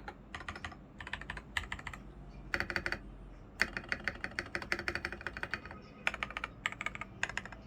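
Typing on a foam-modded LX980 mechanical keyboard with unlubricated AKKO CS Sponge tactile switches and XDA keycaps: quick runs of key clacks broken by short pauses, the longest run lasting about two seconds, near the middle.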